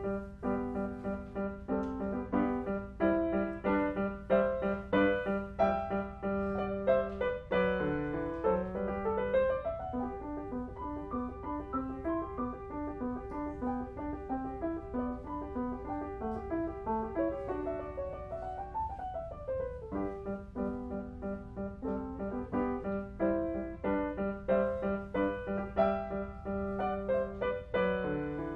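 Grand piano played solo: a sonatina with a melody over repeated low accompaniment notes, and quick scale runs rising and falling in the middle.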